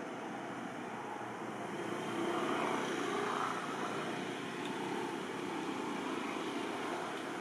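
Distant engine drone, steady, swelling for a couple of seconds about two seconds in.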